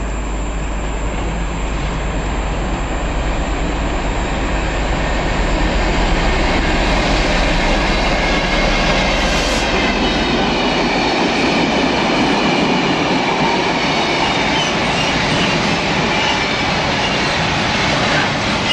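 Freight train hauled by Class 66 diesel locomotive 66207 passing through the station: a continuous rumble of wheels on rail that grows louder about six seconds in.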